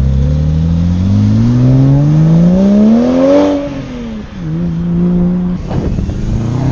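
Porsche 911 Turbo's twin-turbo flat-six accelerating hard away, its engine note climbing steadily for about three and a half seconds before dropping off and settling. Near the end another car's engine revs up.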